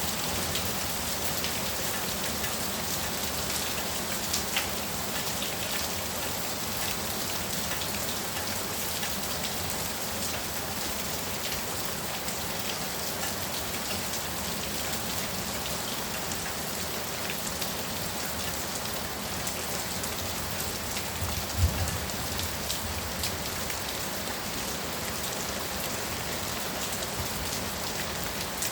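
Heavy rain pouring steadily, a dense even hiss with scattered sharper drop impacts. A single brief low thump stands out about three quarters of the way through.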